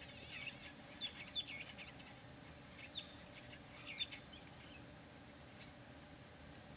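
Birds calling in the bush: a few short, sharp chirps that sweep down in pitch, in two small clusters in the first four seconds, over a faint background.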